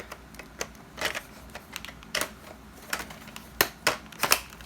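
Sharp plastic clicks and knocks, scattered irregularly, as parts of a Dyson roller attachment are handled and plugged together, with a few louder clicks in the second half.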